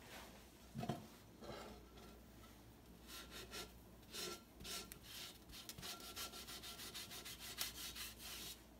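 Wet paper towel scrubbing the outside of a Calphalon pot, a run of quick short rubbing strokes from about three seconds in as the outer coating wipes off. A light knock about a second in.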